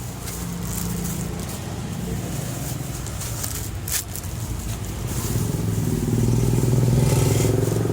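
A motor vehicle's engine running steadily, growing louder over the second half.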